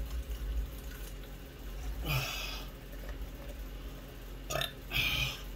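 Gulping from a large plastic drink bottle, then three short, sharp gasping breaths out after drinking, about two seconds in and twice near the end: relief from a mouth burning with ghost-pepper heat.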